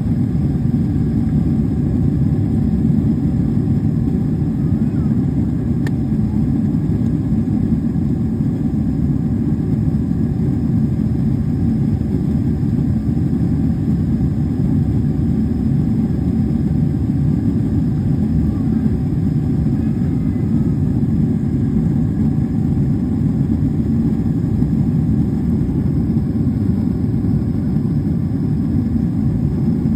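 Steady low roar inside a jet airliner's cabin in flight: engine and airflow noise from a seat over the wing, unchanging throughout.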